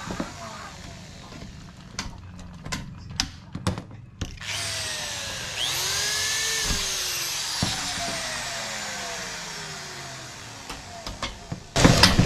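Handheld electric drill running as it bores a hole in a metal bracket, with handling clicks before it. A burst of loud knocks comes near the end.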